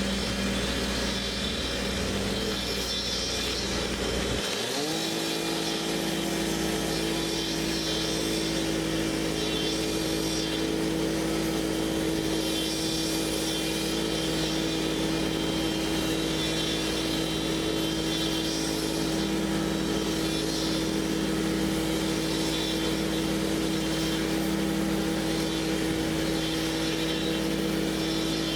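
Diesel engine of a concrete truck revving up about four seconds in, then holding at a steady high speed.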